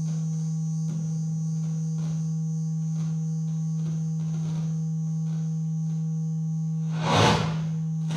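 Live electronic music from loudspeakers: a steady low sine-tone drone with fainter high tones held above it. About seven seconds in, a short swell of hiss rises and falls.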